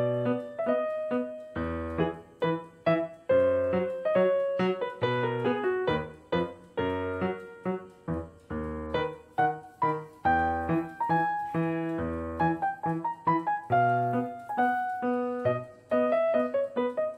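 Background piano music: a flowing melody of quickly struck notes over regular low bass notes.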